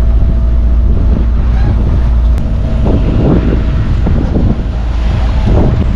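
Sailing yacht under way at sea: wind buffeting the microphone over a steady low hum, with louder rushes of water or gusts about three seconds in and again near the end.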